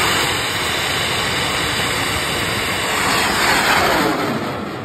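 A bang fai saen, a large homemade black-powder rocket, launching and climbing: its exhaust makes a loud, rough rushing noise that swells about three and a half seconds in and then begins to fade as the rocket climbs away.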